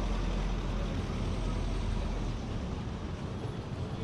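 Street traffic noise with a heavy low engine rumble close by, which drops away about two and a half seconds in.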